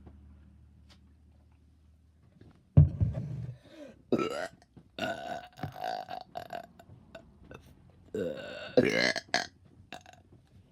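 A person burping repeatedly, with soda-driven burps from gulping a carbonated soft drink: a quiet start, then a series of loud burps from about three seconds in, one long and drawn out in the middle and another loud one near the end.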